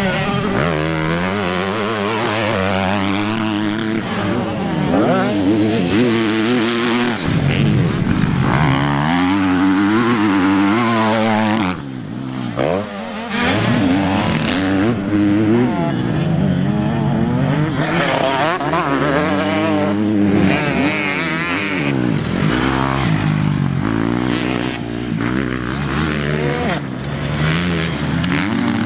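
KTM motocross bike engines revving hard, the pitch climbing and dropping again and again as the throttle is opened and shut and gears change through the corners.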